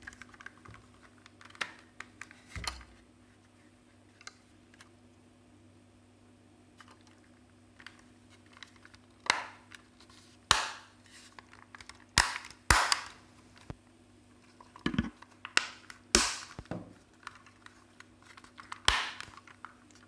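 Plastic upper shell of a DJI Mavic Pro drone being pressed onto its body and snapping into its clips: scattered sharp clicks and snaps, a few early and a quick run of them in the second half.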